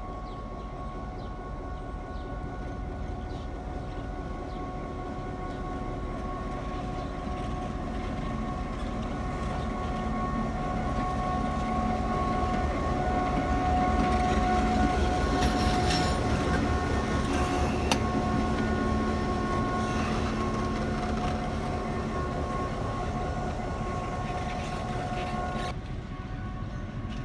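EMD GP7 diesel-electric locomotive running light at low speed, its 567 two-stroke V16 diesel engine running with a steady whine. It grows louder as it passes close about halfway through, with a few sharp clicks from the wheels over rail joints, then fades.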